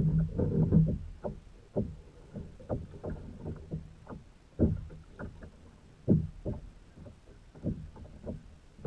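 Irregular knocks and thumps on a plastic fishing kayak, a busier cluster of them in the first second, as a small fish is pulled from the water beside the hull and lifted aboard.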